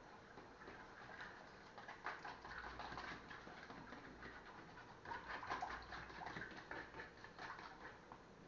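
A metal utensil beating pancake batter in a plastic container by hand, giving a faint, quick run of scraping and tapping clicks against the container's sides. It grows busier about two seconds in and again around the middle.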